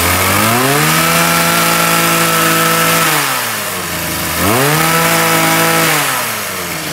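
Makita 23cc brush cutter engine running smoothly on test and being revved twice: each time the pitch rises quickly from idle, holds for a couple of seconds, then drops back to idle.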